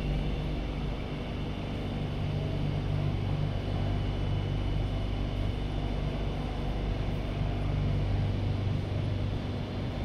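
Steady low rumble and hum of trains running through an underground metro station.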